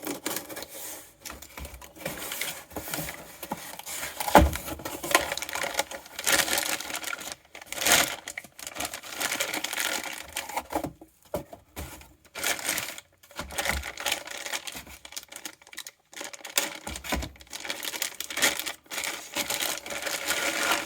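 A cardboard box being opened and its packaging rustled and crinkled, with irregular clicks and knocks as the part inside is handled. A single sharp knock about four seconds in is the loudest sound.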